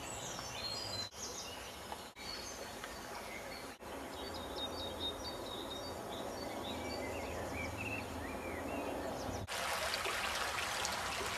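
Small birds singing and chirping over steady outdoor background noise, broken by a few brief dropouts. About two seconds before the end the sound switches abruptly to the louder, even hiss of running water.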